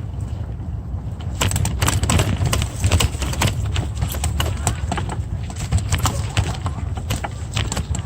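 Wind buffeting the microphone of a moving road bike as a steady low rumble, with many scattered irregular clicks and knocks from about a second and a half in and faint voices of passers-by.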